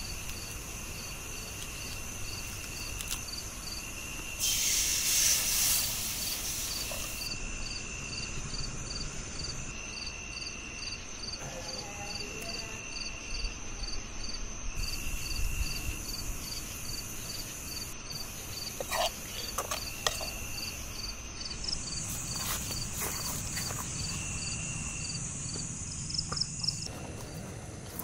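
Night insects chirping: one keeps up a steady high chirp about twice a second, while another trills in bursts of about a second. A loud rush of hiss rises over them for about a second and a half, some four seconds in, and a few faint clicks come later.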